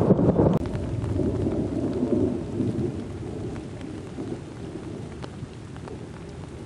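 Thunder rumbling in a thunderstorm with steady rain falling. A loud rumble drops off sharply about half a second in, and a softer rumble then fades away.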